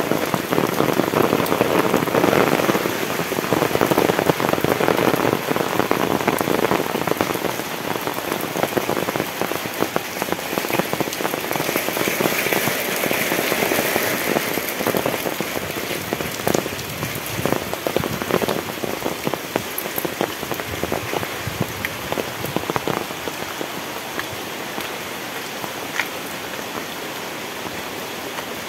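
Heavy tropical rain falling: a dense, steady hiss of rain with many close, sharp drop impacts. It eases gradually toward the end.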